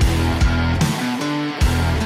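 Background music: a guitar-led track with a regular beat.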